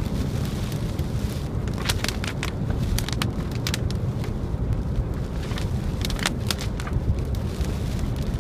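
Steady low road and engine rumble inside a moving car's cabin, with scattered sharp ticks against the windshield-mounted phone or glass, bunched at a few moments.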